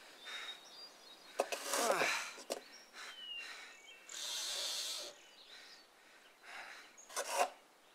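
Quiet forest ambience with faint bird chirps. About two seconds in there is a short sound falling in pitch. From about four seconds a steady hiss lasts about a second, the scrape of a correction tape roller being drawn across.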